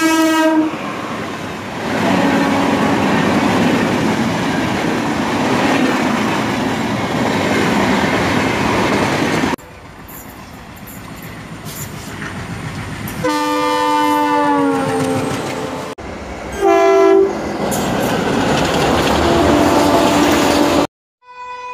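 Recorded sound of a real train dubbed over a toy train: a horn blast ending just after the start, then the rumble and clatter of the train running. The sound cuts abruptly about ten seconds in; then comes a horn blast that falls in pitch, a short second horn, and more running noise that cuts off near the end.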